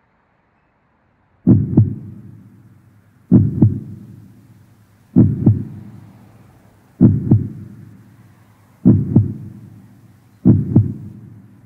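A slow heartbeat: six double thumps (lub-dub) about every two seconds, beginning about a second and a half in, each pair trailing off.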